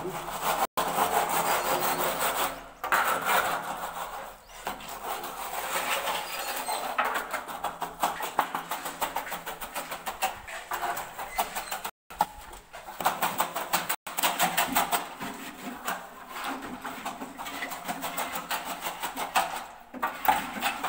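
Metal straightedge worked back and forth across wet concrete, a quick rhythmic scraping, as a floor screed is leveled along the foot of a wall.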